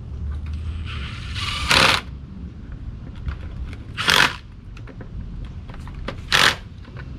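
Cordless drill-driver running in three short bursts, about two seconds apart, the first after a brief whir, as it drives the bolts that fasten the cooling fan to a new fan clutch.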